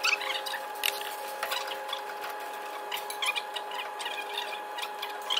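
Scattered small clicks, taps and rustles of insulated wire and hand tools being handled, over a steady hum of several fixed pitches.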